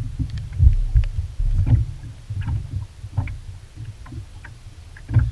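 Low, uneven rumble and thumps of small waves slapping against a motorboat's hull, heaviest in the first couple of seconds and again near the end. Faint clicks and rustles come from a small lake trout being handled and unhooked.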